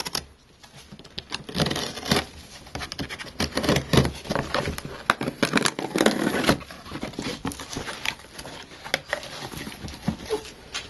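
Hobby knife slitting the packing tape along a cardboard box's seam, then the cardboard flaps being pulled open: a run of irregular scrapes, crackles and clicks.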